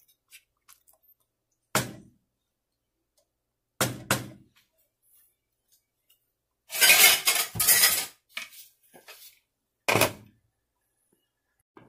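Metal cooking utensils clanking against a curry pot: single knocks about two and four seconds in, a longer, louder clatter around seven seconds in, and a steel lid set down onto the pot with a clank about ten seconds in.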